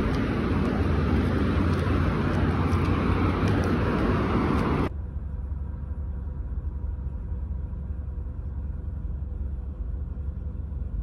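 Steady vehicle rumble and road noise: loud with a hiss for about the first five seconds, then dropping suddenly to a quieter low rumble.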